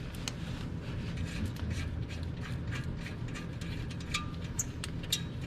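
Scattered metallic clicks and clinks of a wrench working the bolts of an exhaust heat shield, a few per second and irregular, over a low steady rumble.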